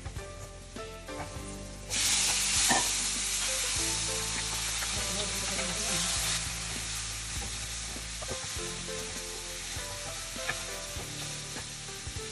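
Chopped garlic sizzling in hot oil in a nonstick frying pan, stirred with a wooden spatula; about two seconds in, prawns go into the pan and the sizzling jumps loud, then eases into steady frying with scrapes of the spatula. Soft background music runs underneath.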